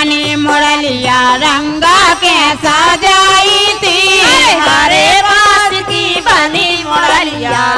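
Women singing a Kartik geet, a Bundeli devotional folk song, into microphones, the melody moving in sung phrases with no break.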